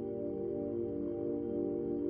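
Background ambient music of sustained, ringing tones held steady like a singing-bowl drone.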